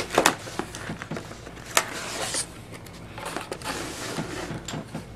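Packaging rustling and crackling, with scattered clicks and knocks, as a tablet is handled and taken out of its box.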